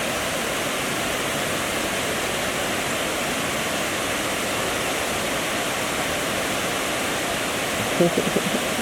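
A steady rushing noise like running water, with a brief voice about eight seconds in.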